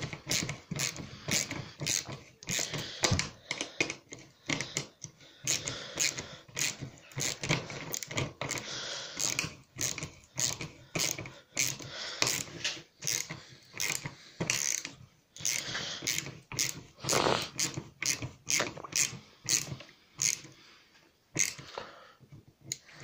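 Ratchet socket wrench clicking stroke after stroke as a nut is tightened down, with rapid runs of clicks and brief pauses between strokes.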